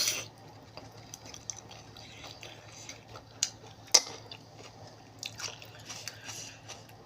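Close-up eating of a spicy Thai seafood salad: soft wet squishing with scattered small clicks, two sharper clicks about three and a half and four seconds in.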